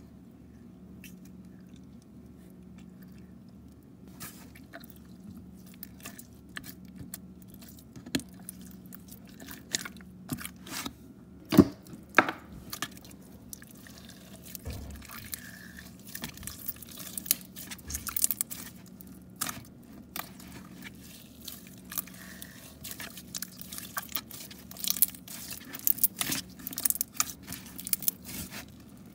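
Glossy red slime being poked, stretched and squeezed by hand, giving sticky crackles and small wet pops that come thicker and louder through the second half, with one sharp pop a little before halfway. A faint steady hum lies underneath.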